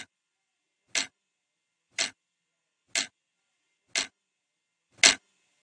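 Clock ticking: six sharp ticks, one a second, the last one the loudest.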